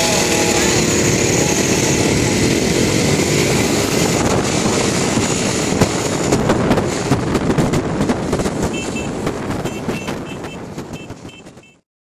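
Small motor scooter engines running as a group rides along, their pitch rising and falling, with wind buffeting the microphone in the second half. The sound fades out near the end.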